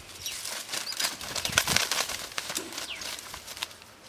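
Crackling and rustling of dry twigs and brush as someone pushes through undergrowth on foot, loudest in the middle. A high bird call sliding downward sounds twice.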